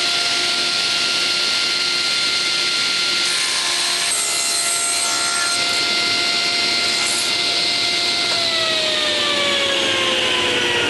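Table saw running with a steady whine while its blade cuts through a length of pine 2x3 lumber, the cut noise strongest about three to six seconds in. At about eight seconds the motor is switched off and the whine falls steadily in pitch as the blade winds down.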